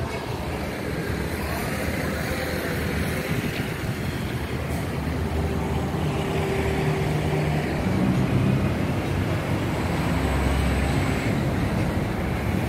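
Outdoor road-traffic ambience: a steady low rumble of vehicles that grows a little louder about eight seconds in.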